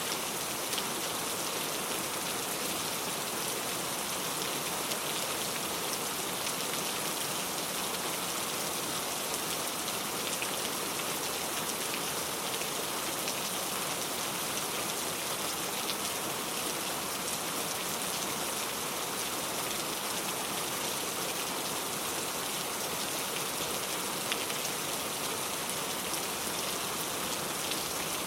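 Steady rain falling, with an even hiss and many close-set drops pattering on a surface.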